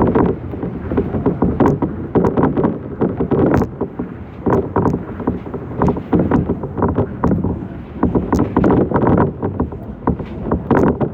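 Tokyo Monorail train running, heard from on board: a steady rumble of running noise with frequent irregular clicks and rattles.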